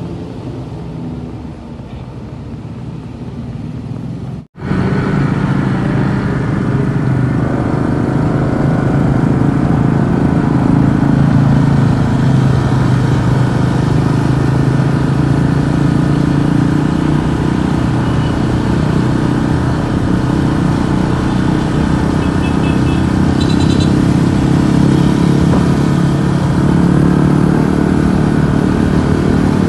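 Road vehicle engine running steadily, with a brief dropout about four and a half seconds in.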